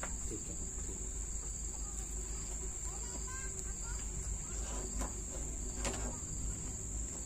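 Insects chirring, a steady high-pitched drone, over a low rumble of wind on the microphone, with a few faint bird chirps and two sharp clicks about five and six seconds in.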